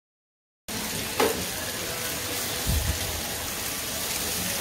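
Fish and crayfish tails sizzling on a gas grill plate: a steady frying hiss that starts suddenly after a second of silence, with a sharp click about a second in and a low bump a little later.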